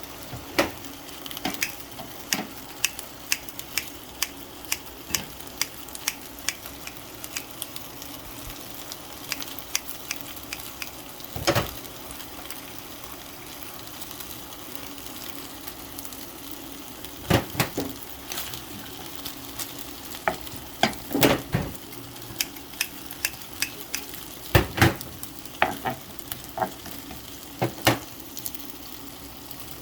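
Food sizzling as it fries in a pan while being stirred: a steady sizzle with frequent sharp taps and knocks of a cooking utensil against the pan, coming in heavier clusters every few seconds.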